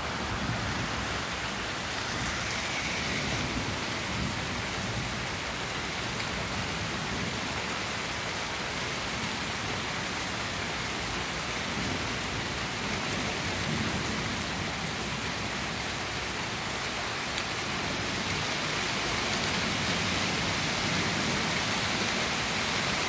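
Heavy thunderstorm rain pouring down steadily.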